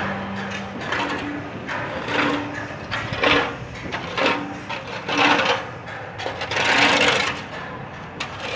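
Rhythmic scraping strokes, roughly one a second and uneven in loudness, some with a brief low tone.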